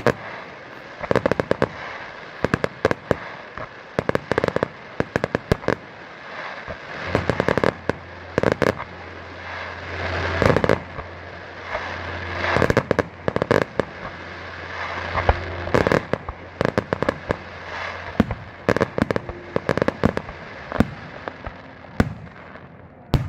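Fireworks going off in a continuous, irregular string of sharp bangs and crackling pops, some in quick clusters.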